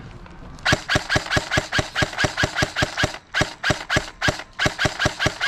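M4-style airsoft rifle firing a rapid string of shots, about five a second, each a sharp mechanical crack; the firing starts under a second in and breaks off briefly about three seconds in before going on.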